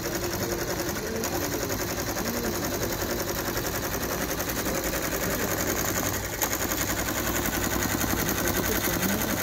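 Multi-needle commercial embroidery machine stitching at speed, about 650 stitches a minute: a fast, even rattle of needle strokes.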